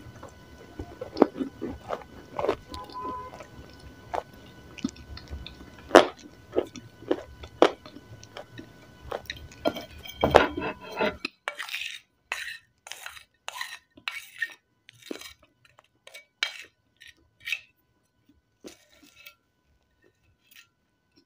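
Close-up mouth sounds of someone chewing and crunching lumps of grey clay, with wet clicks and smacks. About eleven seconds in the background hiss cuts out, and a spoon scrapes and clinks against a ceramic plate in a quick run of sharp strokes that thin out near the end.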